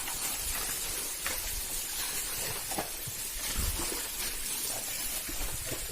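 Steady rushing hiss of river water, with a few faint low thumps.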